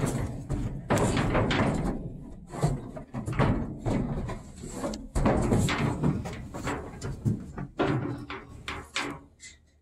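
Calves moving about inside a metal livestock trailer: irregular knocks, bangs and scuffing of hooves and bodies against the metal floor and sides.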